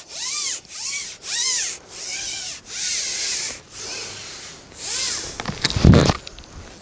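A carbon fishing pole being pushed out section by section, the sections sliding and rubbing through the hands and over the pole rests in repeated strokes, about two a second. Near the end there is one louder, short low thump.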